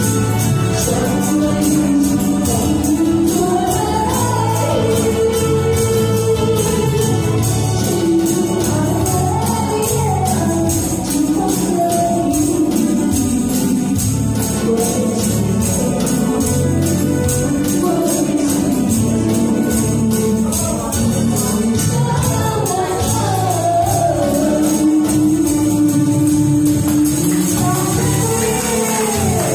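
A woman singing a pop ballad through a handheld microphone and PA over a karaoke backing track with a steady beat, with hand-held tambourines jingling along in time.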